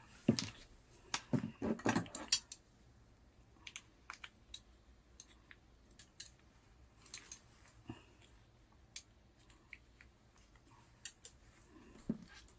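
Hand tools and small plastic and carbon RC car parts clicking and clacking on a work mat. There is a burst of sharper knocks in the first two seconds or so, where water pump pliers are being used and set down, then scattered light clicks, and a few more near the end as the pliers are picked up again.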